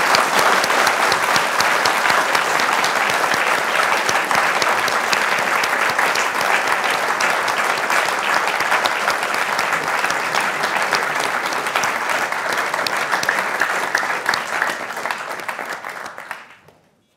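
Audience applause: a roomful of people clapping steadily, fading out near the end.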